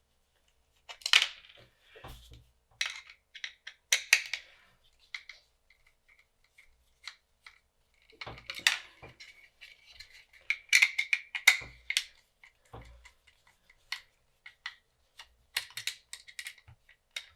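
Screws being undone and a metal bracket taken off a cheap hot air rework station's steel case: scattered clicks and small metallic clinks as the screwdriver works and screws and parts are handled.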